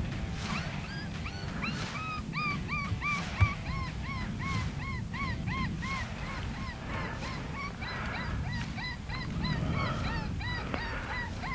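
Electronic predator game call playing a looping distress sound: a rapid, even series of high arching squeals, about three a second, which the hunter believes was a baby cottontail distress call. A low rumble runs underneath, with one short knock about three and a half seconds in.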